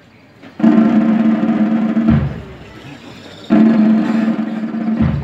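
A procession band's drums playing two drum rolls, each about a second and a half long, the second starting about three and a half seconds in.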